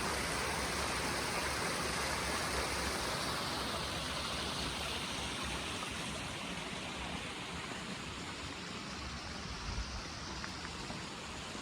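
Steady rush of flowing water, slowly fading.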